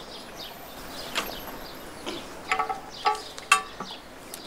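Birds chirping in the background, with a few short ringing clinks in the second half as a tea glass is handled at a metal table.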